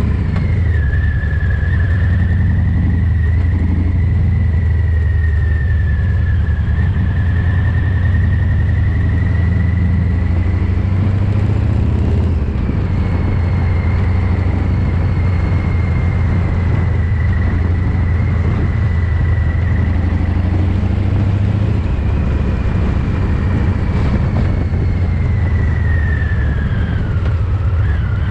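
Harley-Davidson Fat Boy 114's Milwaukee-Eight V-twin running through a Vance & Hines exhaust while riding: a steady, heavy low rumble under a thin high whine that drifts slowly in pitch, with brief changes about twelve seconds in and again near twenty-two. The recording is overloaded and mushy because the recorder's gain was set far too high.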